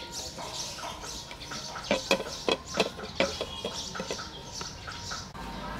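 Sliced herbs scraped off a plate and dropping into a blender jar, with a run of sharp clicks and taps about two to three seconds in. Birds chirp throughout.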